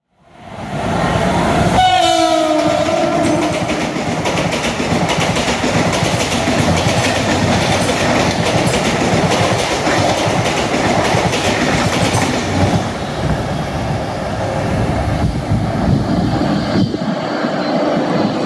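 Mumbai suburban electric local train giving a short horn blast about two seconds in, its pitch dipping slightly. It then runs past, with its wheels clattering over the rail joints, and the clatter eases somewhat in the last few seconds.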